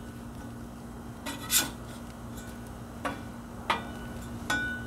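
Metal spatula scraping and clinking on the steel top of a Blackstone 22-inch griddle as toast is slid and flipped: four short strokes with a brief metallic ring, the longest scrape about a second and a half in.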